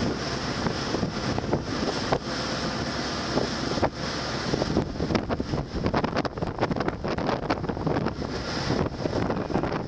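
Wind buffeting the microphone on a ship's open deck, in uneven gusts, over a steady rush of sea and vessel noise with a constant high hiss.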